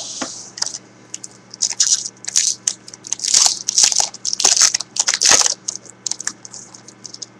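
Foil wrapper of a Topps Unrivaled football card pack crinkling and crackling as it is worked open by hand, in irregular bursts that are loudest between about three and five and a half seconds in.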